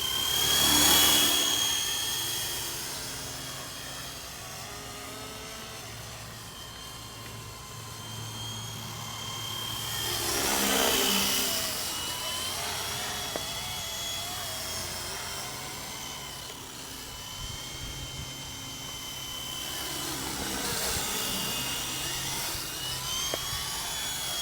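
WLtoys V912 fixed-pitch RC helicopter flying, a high motor and rotor whine that wavers in pitch. It swells louder three times: about a second in, around eleven seconds, and again near twenty-one seconds.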